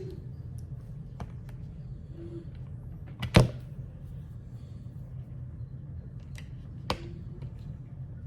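Small clicks and knocks of Torx screwdriver bits and a driver being handled and swapped while hunting for the size that fits. There is a sharp knock about three and a half seconds in and another near seven seconds, with fainter ticks between, over a steady low hum.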